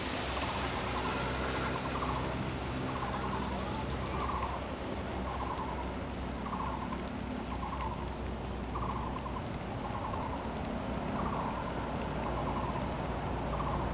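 An animal call repeated about once a second, each a short pulsed note, over a steady thin high whine and a low rumble.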